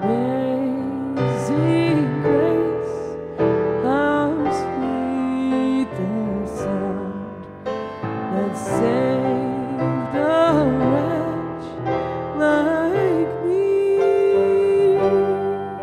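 A woman singing a song into a microphone, accompanied by a grand piano; her voice wavers in vibrato on sustained notes and she holds one long note near the end.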